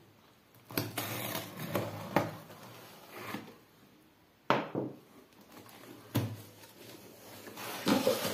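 Utility knife slitting the packing tape on a cardboard box: a run of scraping rips in the first couple of seconds. Then the cardboard flaps are pulled open with sharp snaps, and bubble wrap inside rustles near the end.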